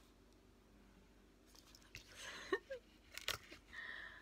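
Quiet handling of a paperback picture book: a soft papery rustle about halfway through and a single sharp click a little later, with a short breathy sound from the reader in between.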